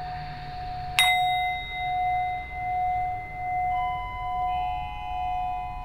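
Meditation music of singing bowl tones. A bowl is struck about a second in and rings on over a steady sustained tone, the sound swelling and fading about once a second, with further tones joining partway through.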